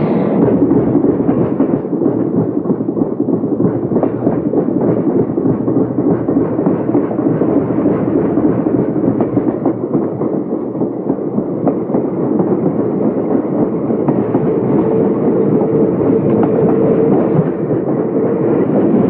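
Subway train in motion, heard from inside the carriage: a loud, steady rumble of wheels and car body. A faint steady whine joins it in the last few seconds.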